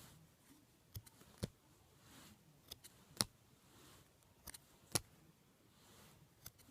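Scattered sharp clicks and taps from trading cards being handled and flipped through, about eight in all, the loudest a little past three seconds in.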